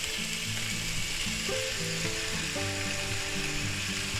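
Cucumbers, bell peppers and onions sizzling steadily in hot oil in a cast iron skillet as they stir-fry.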